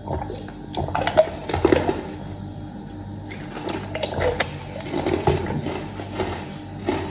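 Drinking from a plastic water bottle, then chewing, with sharp clicks and crackles of plastic being handled.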